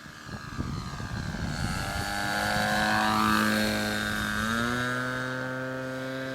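O.S. 55 glow engine of a radio-controlled model plane flying past: it gets louder to a peak about three seconds in, then fades. About four and a half seconds in, the engine note steps up in pitch.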